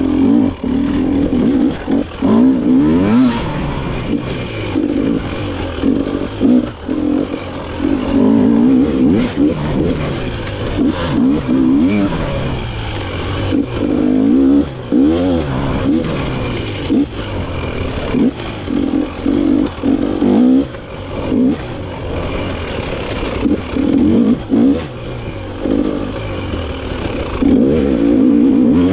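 Dirt bike engine revving up and down over and over as the throttle is opened and chopped, with short drops in pitch between bursts. Scattered knocks and clatter come from the bike running over rough ground.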